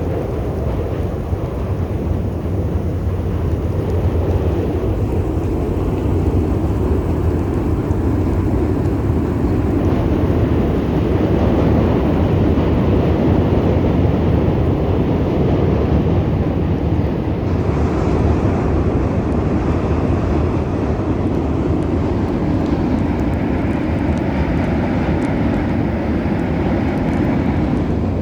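Steady, loud low rumbling of wind buffeting the microphone in a snowstorm, with no breaks.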